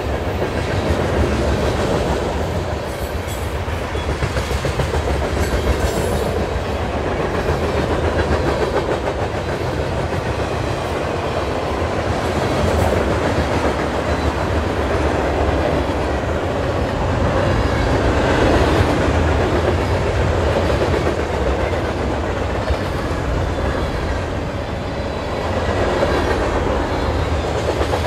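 Freight cars of a passing train rolling by, their steel wheels running steadily on the rails.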